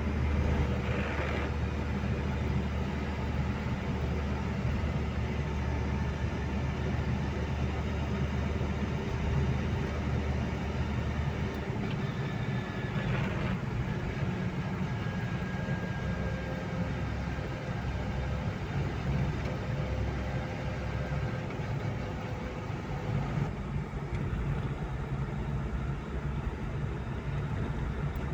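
Car engine and tyre noise heard from inside the cabin while driving on wet asphalt: a steady low drone under a hiss. The drone's low note changes about twelve seconds in.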